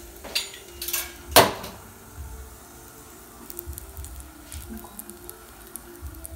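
Chocolate chip pancake batter sizzling faintly in a hot nonstick frying pan, with a few sharp clicks and knocks in the first second and a half, the loudest about a second and a half in.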